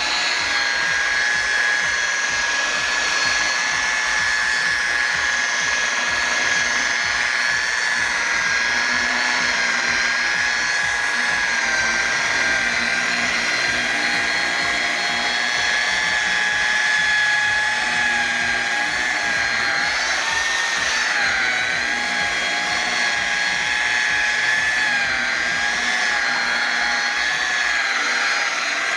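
Chicago-brand corded rotary polisher with a foam buffing pad, running at about 1800 RPM while it works wax into car paint: a steady, high motor whine whose pitch wavers slightly as the pad is pushed across the panel, bending briefly about two-thirds of the way through.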